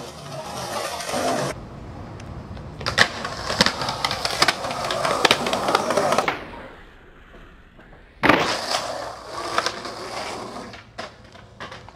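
Skateboard wheels rolling over concrete, broken by several sharp clacks as the board is popped and lands. After a quieter stretch, a loud slap of the board hitting the ground is followed by more rolling and a few light clicks near the end.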